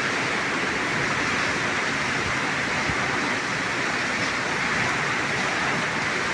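Heavy cyclone rain and wind: a steady, unbroken rush of noise.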